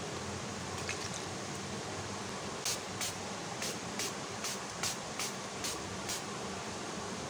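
Finger-pump spray bottle misting, about nine quick sprays in a row, two to three a second, over a steady background hiss.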